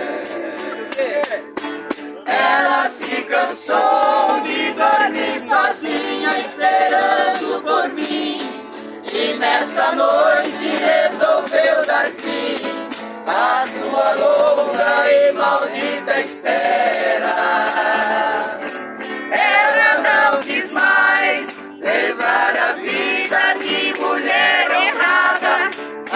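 Music: singing voices over a fast, steady shaker rhythm. The sound is thin, with no bass.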